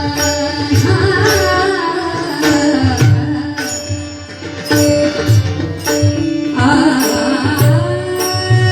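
Devotional bhajan music: a voice singing over held instrumental notes, with a steady hand-drum beat and sharp percussion strokes about twice a second.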